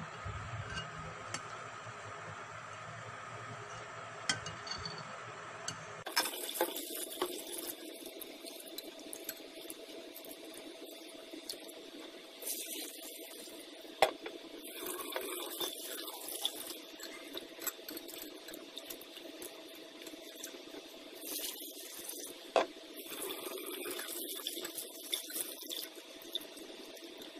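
Rice being washed by hand in a glass bowl in a steel sink: water sloshing and tap water running in spells, with sharp clinks against the glass bowl. The water sounds start about six seconds in.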